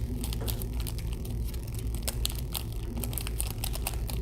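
Plastic packaging crinkling and clicking in quick, irregular bursts as it is handled, over a low steady hum.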